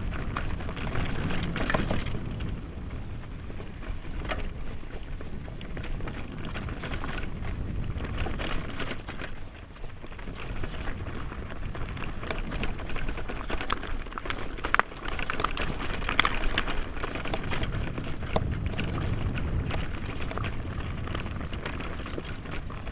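A mountain bike rolling over a rough dirt track, with wind rumbling on the microphone and the tyres and loose parts giving off many short clicks and rattles.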